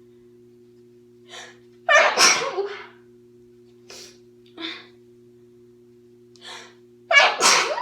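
A young woman sneezing twice, about five seconds apart, each sneeze a loud burst of under a second, with short, quieter breaths in between.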